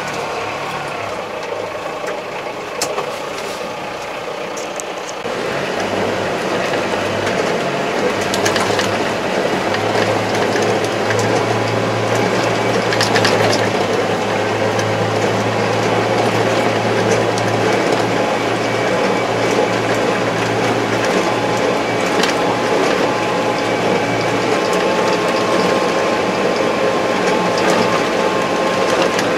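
Kubota MZ755 tractor's diesel engine and drivetrain running, heard from inside the closed cab, with a steady hum and mechanical rattling. It gets louder about five seconds in as the tractor moves off, then runs steadily.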